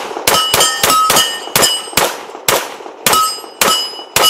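Bul Armory Radical 2011 competition pistol in .40 caliber firing a rapid string of shots, about three a second, at steel plate targets; most shots are followed by a short metallic ring as a plate is hit.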